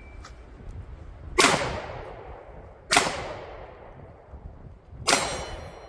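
Three pistol shots about a second and a half apart, each a sharp crack with a long echoing decay; a thin ringing of hit steel targets follows the last shot.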